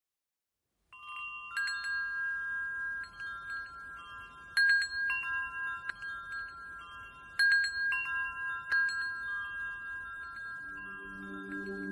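Metal-tube wind chime ringing, starting about a second in. Its tubes are struck irregularly every second or few, and the tones overlap and ring on. Low steady tones come in near the end.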